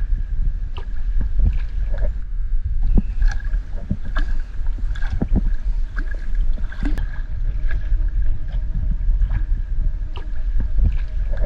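Water churning and lapping around an inflatable pontoon boat under way, with a low wind rumble on the microphone and scattered small splashes and knocks. A faint, steady high whine runs underneath.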